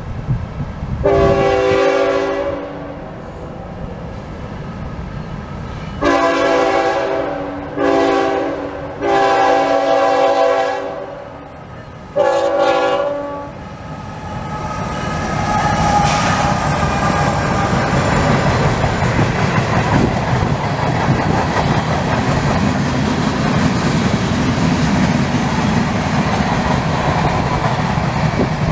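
CSX freight locomotive's air horn sounding a chord of several notes in five blasts: long, long, short, long, short, the pattern used for a grade crossing. Then the locomotive and its freight cars roll past on the rails with a steady, loud rumble.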